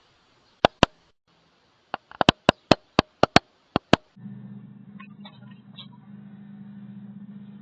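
A quick run of sharp taps or knocks, about a dozen over four seconds, some in close pairs. About four seconds in they give way to a steady low electrical hum with faint ticks above it.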